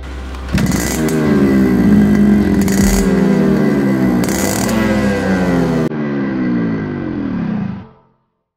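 Motorcycle engine running at the exhaust pipe, its sound jumping up about half a second in and fading out near the end.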